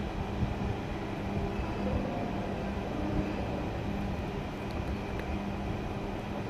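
Steady low background rumble with a constant hum.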